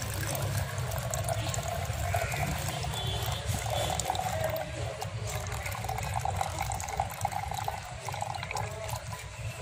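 Warm water poured from a steel tumbler into a half-cut plastic bottle, a steady trickling fill that runs on without a break.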